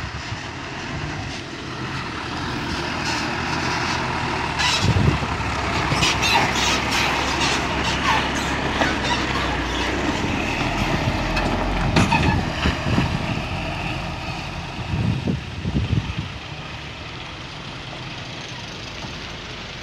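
Box truck driving past close by and then pulling away up the road: its diesel engine runs with tyre and road noise that swells as it passes and fades as it goes, with a few short sharp sounds near the middle.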